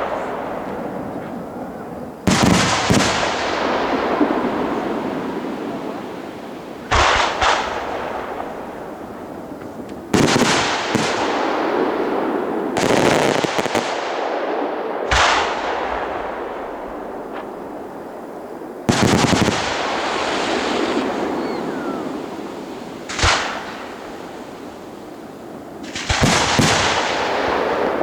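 Aerial fireworks shells bursting in a large display: about seven loud bangs a few seconds apart, each followed by a long fading tail of crackle and echo, with several bursts close together near the end.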